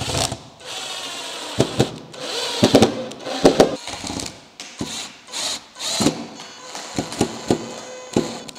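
Cordless drill driving screws through a chipboard template into a wooden tabletop, its motor whining in several runs, with sharp clicks between them.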